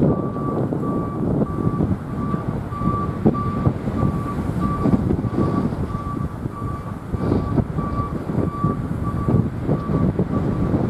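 Container wagons of a slow intermodal freight train rolling past, with a steady wheel rumble and irregular clatter. An electronic beep repeats about twice a second throughout.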